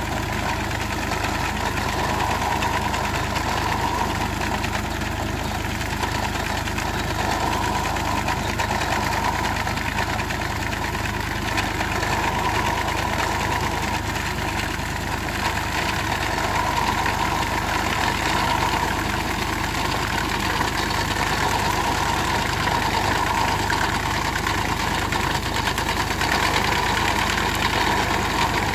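Volvo BM 430 tractor's diesel engine running steadily under load, mixed with the fast, steady clatter of an IH sickle bar mower's reciprocating knife cutting standing oats.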